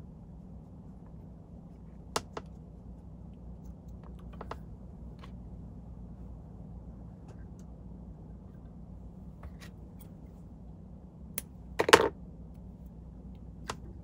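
Scattered small clicks and taps from hand work at a fly-tying vise, with thread, bobbin and feathers being handled, over a steady low hum. A louder short clatter comes about twelve seconds in.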